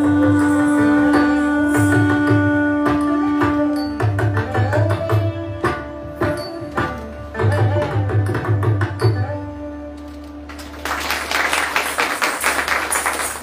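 Carnatic classical dance music: a long held melodic note over rhythmic hand-drum strokes. The music ends about ten seconds in, and the audience breaks into applause.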